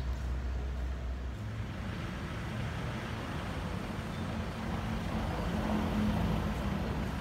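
A motor vehicle's engine running nearby, a low steady rumble whose pitch shifts about a second and a half in and that grows slightly louder around five to six seconds in.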